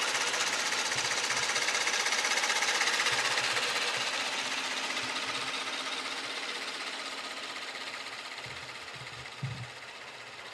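Kia K900's 3.3-litre naturally aspirated V6 GDI engine idling with the hood open, heard close up with a fast, even ticking typical of direct fuel injection. It fades steadily as the microphone draws back from the engine, with a few low thumps about nine seconds in.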